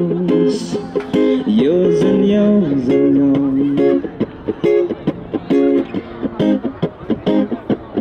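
An acoustic guitar strummed under a man's singing voice holding long notes that slide in pitch. About halfway through the singing stops and the guitar goes on alone in short, choppy strums.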